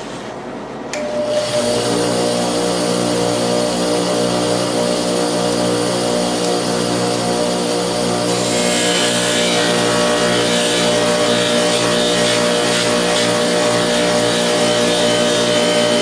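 Bench buffing motor switched on with a click about a second in, then running with a steady hum. From about eight seconds in, a pocket-knife blade is held against the spinning cotton buffing wheel, adding a rubbing hiss on top of the motor.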